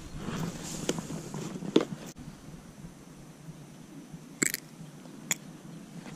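Close handling of a small clear plastic tackle box of soft plastic baits: a few sharp plastic clicks, one as the lid snaps open, over faint rustling as the baits are picked through.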